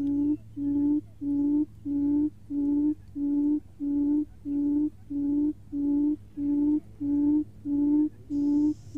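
Recorded buttonquail booming call played as a lure: a low hooting note repeated at an even pace, about three notes every two seconds, over a steady low hum.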